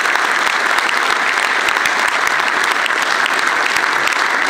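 Audience applauding in a large hall, a dense steady clapping of many hands after a speech ends.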